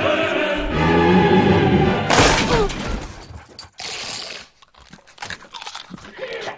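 Dramatic music swells, then about two seconds in a sudden loud smashing crash, as a door is burst through and broken, fading over about a second into scattered softer knocks and rustles.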